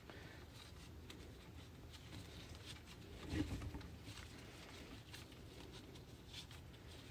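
Faint rustling and light ticks of woven sling webbing being worked by hand through its adjuster buckle, with a slightly louder rustle about three and a half seconds in.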